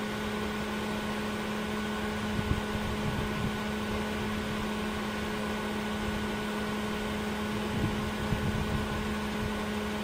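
A small electric motor on a Perkins 4.108 diesel generator set runs with a steady hum at a constant pitch, with a few faint knocks, while oil pressure slowly builds before the engine is started.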